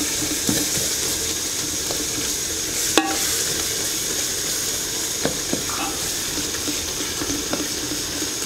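Chopped tomatoes, peppers and onions sizzling in a large aluminium pot, stirred with a metal ladle that scrapes and knocks against the pot a few times, most sharply about three seconds in.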